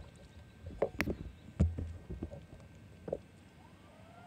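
Scattered light knocks and clicks over a faint low rumble, with a faint rising whine near the end.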